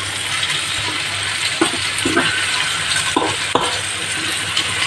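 Chicken pieces and onions sizzling in hot oil in a frying pan. A metal spoon knocks and scrapes against the pan four times as the chicken is stirred.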